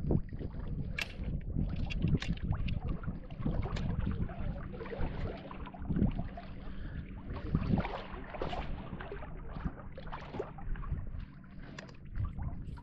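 Wind buffeting the microphone over a faint steady low hum, with irregular knocks and splashes, typical of a small fishing boat on open water.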